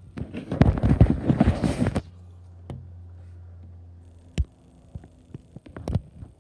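Low hum of a distant helicopter, under loud crackling and rustling on the phone's microphone for the first two seconds, then a few sharp clicks.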